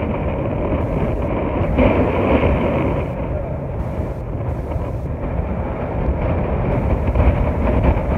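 Strong wind buffeting the microphone: a loud, ragged low rumble that swells and eases with the gusts.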